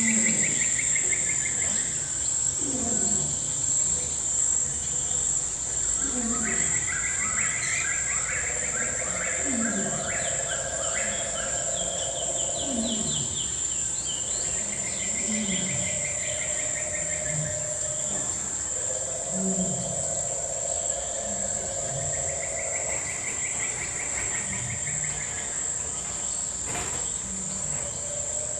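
A continuous high, shrill insect chorus, with pulsed trills coming and going every few seconds and short low calls falling in pitch repeating throughout.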